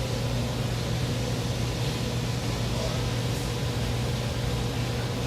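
Steady background room noise: a constant low hum under an even hiss, with no distinct events.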